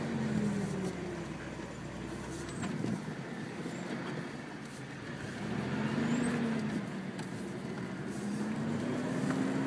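Toyota 4Runner engine heard from inside the cabin while crawling a rough dirt trail. Its pitch rises and falls as the throttle is worked, swelling about six seconds in, with scattered short knocks and rattles.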